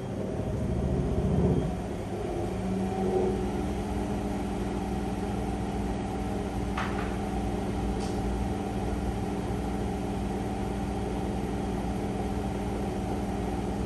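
Electrolux EVKF 12844S front-loading washing machine spinning its drum at high speed in diagnostic test mode, the motor's whine rising in pitch over the first couple of seconds and then holding steady near top spin, about 1150 rpm against the machine's rated 1200 rpm. This is the sign of a motor and speed control working normally. There are two faint short clicks about seven and eight seconds in.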